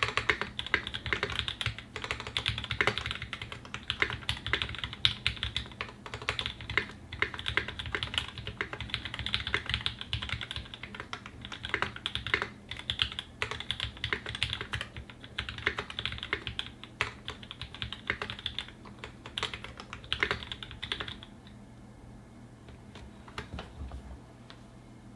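Typing on a Singa 75 polycarbonate mechanical keyboard with a brass plate and lubed Tangerine linear switches: a dense, uneven stream of keystrokes. The typing stops about 21 seconds in, and a few lone key clicks follow.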